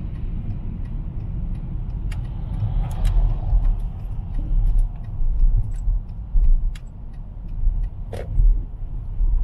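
Car driving slowly on wet roads, heard from inside the cabin: a steady low rumble of engine and tyres, with scattered light ticks and clicks and a slightly louder knock about eight seconds in.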